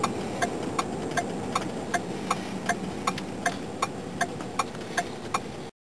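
A car's indicator flasher ticking steadily inside the cabin, about three clicks a second, over the low rumble of the vehicle driving. The sound cuts off abruptly near the end.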